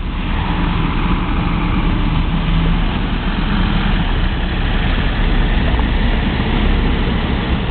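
Convoy of heavy armoured military trucks driving past one after another, their diesel engines running loudly and steadily.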